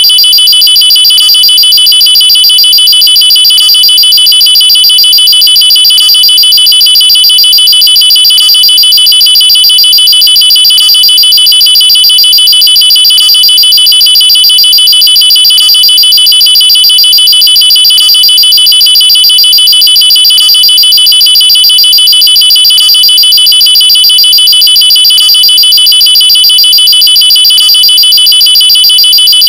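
Loud, high-pitched electronic alarm tone sounding continuously at a fixed pitch, with no rise or fall, and a faint regular pulse about every second.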